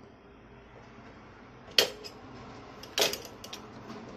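Folding steel luggage cart being folded by hand, its metal frame clacking at the hinges: two sharp metallic clanks, about two and three seconds in, the second followed by a few lighter rattles.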